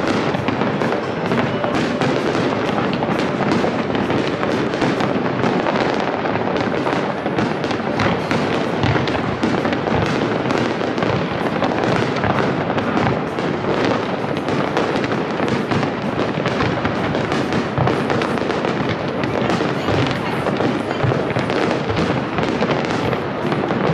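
Aerial fireworks shells bursting and crackling in a dense, unbroken barrage, many reports overlapping with no pause.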